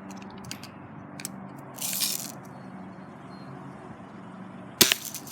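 A single sharp BB gun shot near the end, the loudest sound here, after a few seconds of low background noise with faint clicks and a brief rustle around two seconds in.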